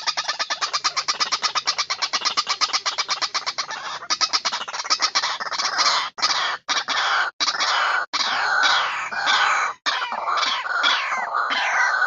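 White-breasted waterhen calls: a fast, even run of short stuttering notes for the first few seconds, then a string of harsh calls that fall in pitch, some overlapping.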